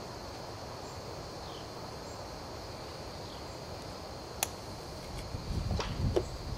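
Quiet outdoor background with a faint high chirp repeating every second and a half to two seconds. A single sharp click comes about four and a half seconds in, then low knocks and clicks near the end as the lid is pressed onto a can of wheel bearing grease.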